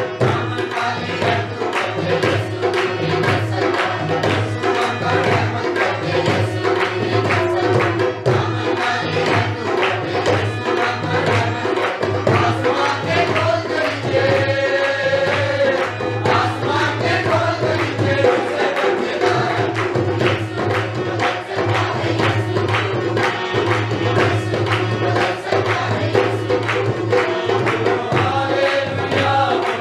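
Mixed choir of men and women singing an Urdu worship hymn to harmonium, with tabla and a hand drum keeping a steady rhythm.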